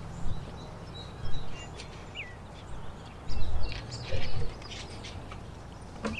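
A few short bird chirps over a low steady rumble, with louder bumps or knocks about a second in and again between three and four and a half seconds.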